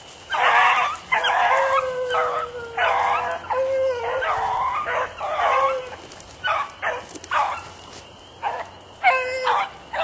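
Beagle baying, a string of about a dozen calls, some of them drawn out, coming thicker in the first half and more sparsely later: the hunting bay of a beagle on a scent trail.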